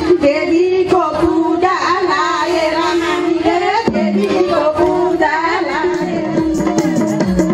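A woman singing a song melody in two phrases, the first starting about a second in and the second near the middle. A steady held instrumental note runs beneath.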